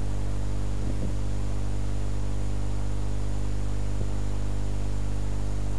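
Steady electrical hum, a low buzz with a stack of evenly spaced tones, with hiss over it: typical of mains hum in a microphone or recording chain. Two faint brief sounds come about a second in and about four seconds in.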